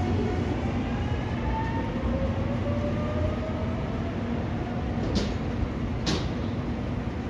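Electric train running out of view, a low rumble with a motor whine of several tones rising slowly in pitch as it gathers speed. Two short hisses come about five and six seconds in.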